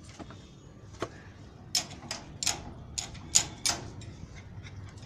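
Metal wire-mesh gate rattling and scraping: a single click about a second in, then about six sharp rattles in quick succession.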